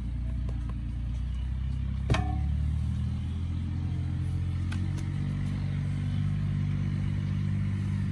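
An engine running steadily with a low hum that shifts slightly in pitch about three seconds in, and a single sharp knock about two seconds in.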